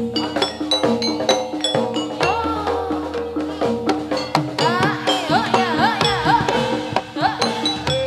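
Javanese gamelan music accompanying a Jathilan dance: struck bronze keyed instruments play steady repeated notes over quick, even drum strokes. A wavering, gliding melody line comes in about two seconds in and turns busier near the middle.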